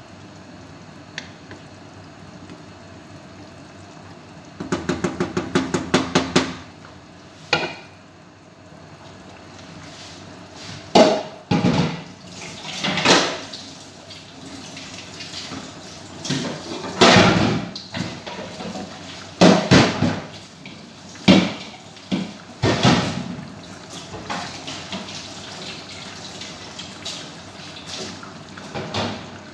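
Rice and chicken boiling in broth in an uncovered pot, bubbling in irregular loud blurps while the rice takes up the water. About five seconds in, a quick run of rapid clicks, about seven a second.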